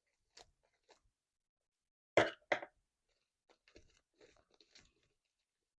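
Homemade slime being squished and handled by hand: a few small clicks, two louder sharp squelches close together about two seconds in, then a run of faint crackles.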